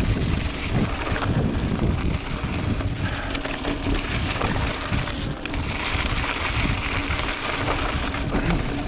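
Wind buffeting the camera microphone over the rumble and rattle of a mountain bike's tyres rolling along a rough dirt trail, steady throughout.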